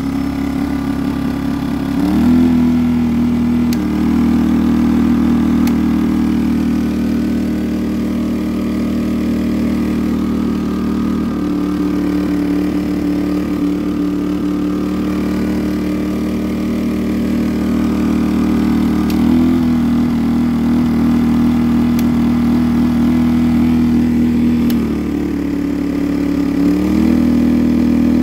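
Yardworks 950W inverter generator running steadily under a light-bulb load, its engine speed stepping up or down a few times.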